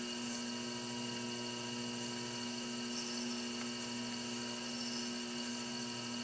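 Electric potter's wheel spinning at a steady speed, its motor giving a steady hum.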